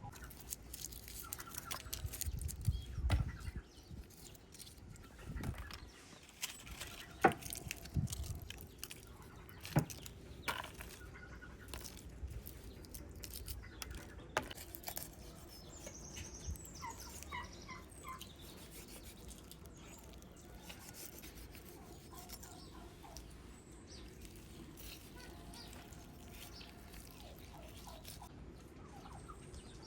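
Domestic poultry calling in short bursts, with scattered sharp knocks and clatter in the first half.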